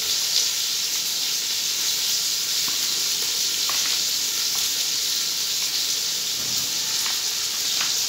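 Onions frying in hot oil in a pan, a steady sizzle, with a few faint clicks over it.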